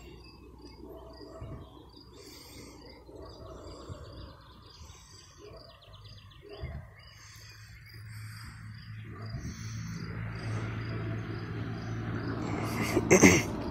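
Birds chirping in short repeated calls, with a brief insect trill about five seconds in. From about eight seconds a low steady hum builds up, ending in a loud short burst of noise near the end.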